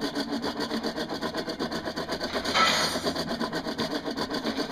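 Hand-cranked blower of a coal forge turning steadily, a rhythmic whirring rasp pulsing several times a second as it blows air into the fire. A brief louder hissing rush comes a little over halfway through.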